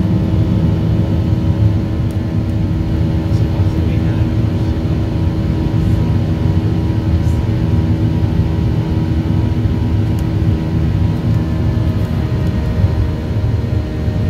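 Cabin noise of a Boeing 737 climbing out after takeoff: the jet engines' steady rumble, with several steady droning tones over it.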